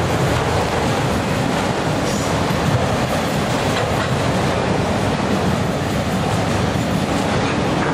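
Autorack freight cars rolling past: a steady rumble of steel wheels on the rails, with occasional light clicks.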